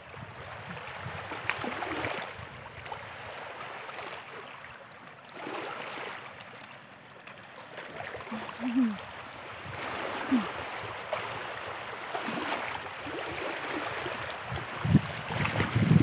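Small feet splashing and slapping about in shallow water, in irregular bursts.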